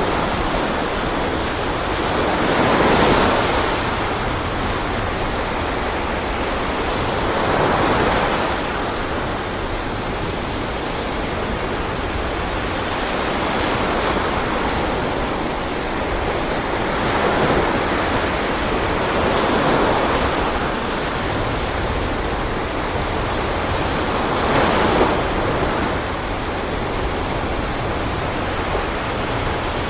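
Rough sea rushing and washing along a fishing boat's hull: a steady wash that swells into louder surges every few seconds.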